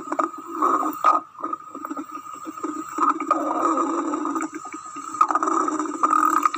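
Normal stomach gurgling heard through a stethoscope: irregular gurgles and rumbles with short clicks. The speaker puts this down to digestive enzymes being secreted inside a healthy stomach.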